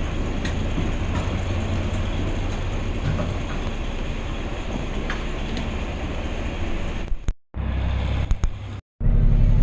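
Farm vehicle engine running steadily under way, with light rattles and ticks over the rumble. Near the end the sound cuts out twice for a moment, then a louder, steadier engine hum follows.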